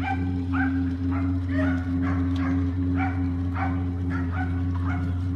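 A dog barking repeatedly, about ten short barks a bit under two a second, over a steady low engine drone.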